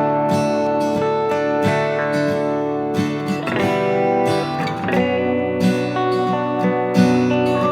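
Background music: acoustic guitar strumming, with chord changes about once a second.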